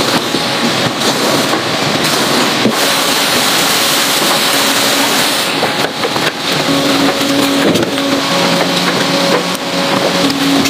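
Steady machinery noise from a vegetable-processing conveyor line: a broad, even rushing sound with a low hum that grows stronger about halfway through.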